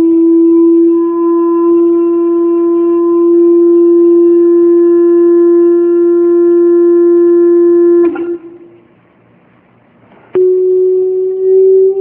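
A steady, buzzy electronic tone played loudly through a loudspeaker, its pitch creeping slowly upward. It cuts off about eight seconds in, and after about two seconds of near quiet it starts again a little higher, still rising.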